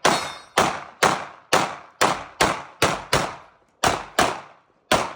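Glock 47 9mm pistol firing a fast string of about eleven shots, most about half a second apart, with a brief pause about three seconds in.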